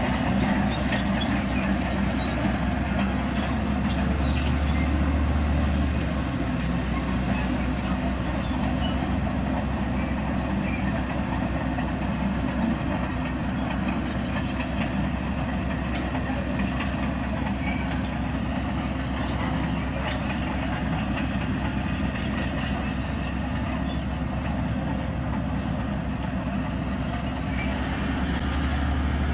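Diesel earthmoving machinery running steadily at work, a continuous low engine rumble with scattered high-pitched squeaks and occasional knocks over it.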